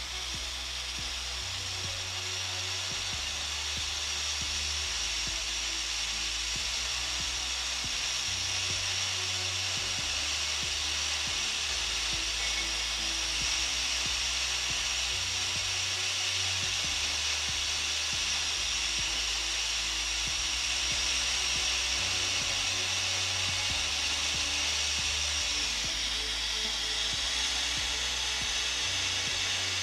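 Hot air rework station blowing a steady hiss of hot air onto a graphics card's memory chip to desolder it. Background music with a bass line runs underneath.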